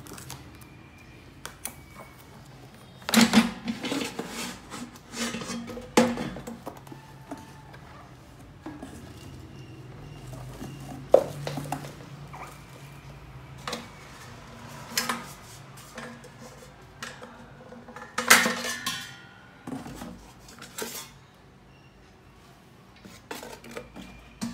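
Irregular knocks and clatters of a Lock&Lock ECF-302R air fryer's drawer and perforated basket being pulled out and handled, in short bursts with quiet gaps between.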